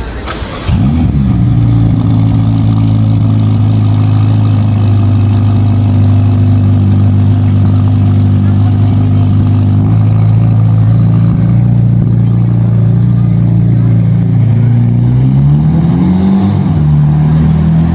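Ferrari Roma's twin-turbo V8 cold-starting: it catches with a loud flare under a second in, then settles into a loud, steady fast idle. Around fifteen seconds in the idle dips and then steps back up.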